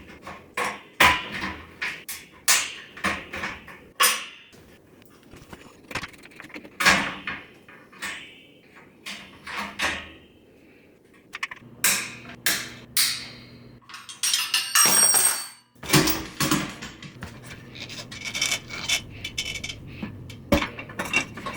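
Metal clicks, clanks and knocks of hand tools and parts as an air compressor's belt guard, belt and pulleys are taken off, with a steadier whirring stretch around the middle.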